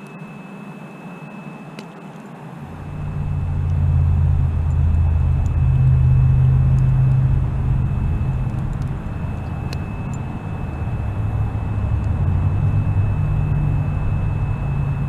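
A low engine drone comes in about three seconds in and holds, swelling and easing, with a faint steady high whine above it.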